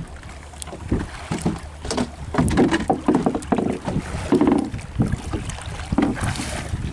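Wind buffeting the microphone and sea water slapping and washing against the hull of a small boat as it rocks on choppy water, with scattered knocks and clicks.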